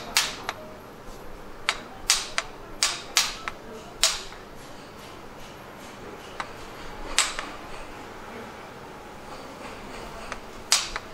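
A mallet tapping the end of a yanagiba knife's handle to drive it onto the tang: a quick run of about nine sharp knocks in the first four seconds, then single knocks about seven seconds in and again near the end.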